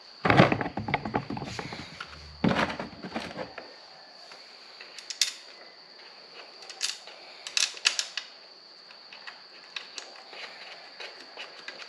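Hands working a wiring harness and connectors through a motorcycle fender eliminator bracket: a burst of rustling and knocking for the first few seconds, then scattered light clicks and ticks of plastic and metal parts.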